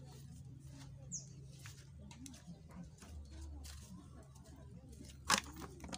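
Quiet background with a short falling bird chirp about a second in and scattered soft clicks, then a single sharp knock about five seconds in.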